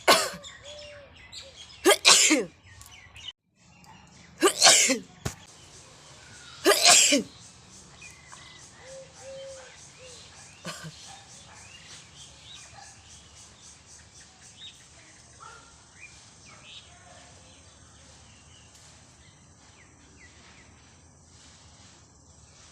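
A person sneezing four times, about two and a half seconds apart, the sneezes brought on by tickling the inside of the nose with a thin stick. After the fourth sneeze only faint sounds remain.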